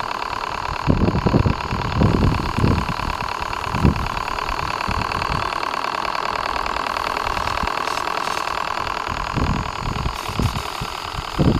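A model Q series V-twin steam engine running at speed, a steady rapid chuffing clatter with a ringing pitch to it. Irregular low bumps come in about a second in and again near the end.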